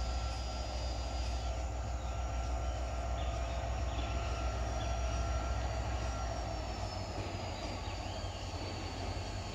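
Diesel locomotive approaching at low speed, its engine a steady low rumble with thin steady high tones above it; the deepest part of the rumble eases about seven seconds in.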